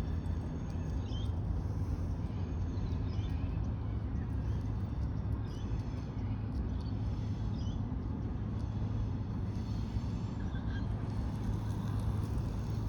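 Outdoor ambience: a steady low rumble with faint, short bird chirps repeating about once a second.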